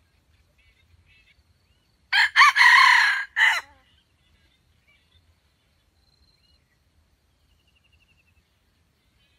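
Junglefowl rooster crowing once, about two seconds in: a loud crow of about a second and a half in three quick parts, clipped short at the end. Faint chirps and a short falling trill from small birds sound around it.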